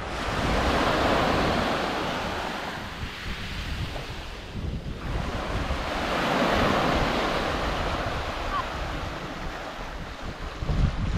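Small waves breaking and washing up a sandy shore, swelling twice, about a second in and again around six seconds in, with wind rumbling on the microphone.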